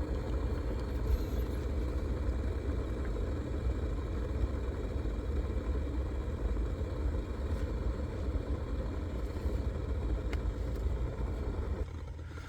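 A steady low rumble that eases off near the end, with a couple of faint clicks.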